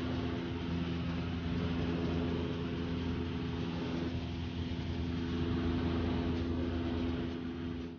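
Steady drone of a small high-wing plane's engine heard from inside the cabin in flight, over a constant rush of air noise.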